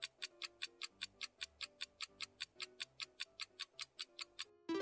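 A clock-like ticking timer effect of about five ticks a second counts down the answer time over soft background music. A bell-like chime sounds right at the end.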